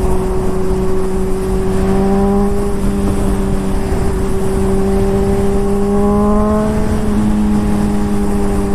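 Honda CBR600RR inline-four with an aftermarket Toce exhaust running at a steady cruise under way, its pitch slowly rising, climbing a little more near seven seconds in and then dropping. Wind rumbles on the microphone underneath.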